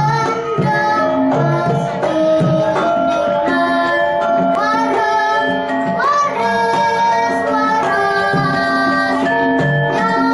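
Javanese gamelan playing a lancaran in pelog tuning: metallophones ringing held notes over a drum beat, with children singing the vocal line, which comes in more strongly about halfway through.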